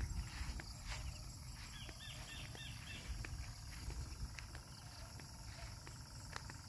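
Rural field ambience: a steady high insect hum over a low wind rumble on the microphone, with a short run of faint chirps a little over two seconds in.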